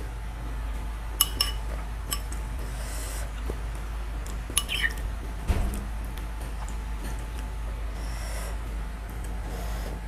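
Metal spoon clinking against a ceramic soup bowl a handful of times, with a dull knock about halfway and soft slurps of soup, over a steady low hum.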